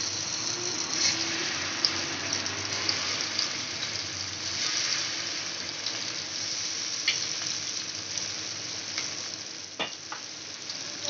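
Marinated sardines shallow-frying in hot oil on a cast-iron tawa: a steady sizzle with a few sharp pops and ticks as more pieces are laid into the oil.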